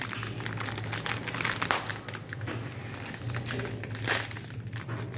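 Plastic ice cream stick wrapper crinkling as it is bitten and pulled open. The crackles come in irregular bursts, loudest about a second and a half in and again about four seconds in.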